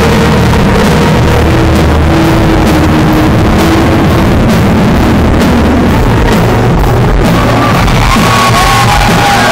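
Live band playing very loud: a woman singing held notes into a microphone over drums and bass guitar.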